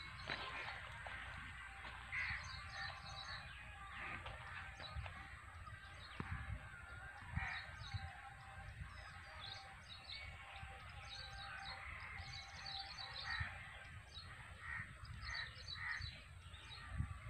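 Several birds calling and chirping in short, repeated calls throughout, over a low rumble.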